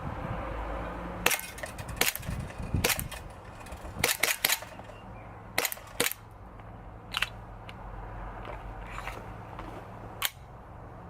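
ASG CZ 75 SP-01 Shadow gas blowback airsoft pistol firing about eleven single shots at irregular intervals, with a quick string of three about four seconds in. Each shot is a sharp crack from the gas burst and the cycling slide.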